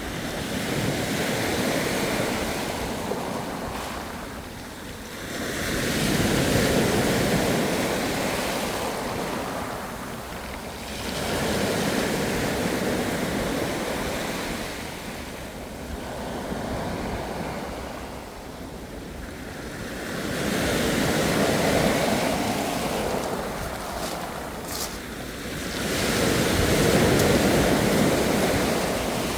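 Ocean waves rolling in and washing back, each swell rising and falling about every five to six seconds, with a steady hiss of surf between them.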